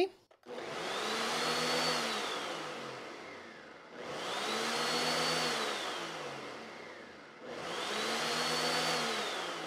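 Countertop blender pulsed three times on a liquid ice-cream base of milk, egg, sugar and cream; each pulse spins the motor up to a high whine that holds briefly and then winds down as it coasts to a stop.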